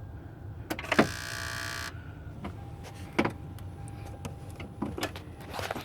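A click, then a buzzing whine lasting about a second from the car's electrics as the ignition is switched, followed by a few single clicks. It is the unexplained noise the owner hears when the key is turned on and when the engine is switched off.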